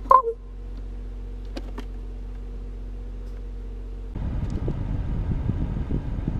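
A common raven gives one short croak at the start, then a couple of faint clicks, over the steady hum of a pickup truck's engine. About four seconds in, the hum gives way to a louder, rough rumble.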